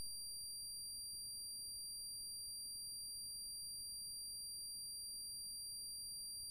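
Steady high-pitched electronic tone, unchanging, over a faint low rumble.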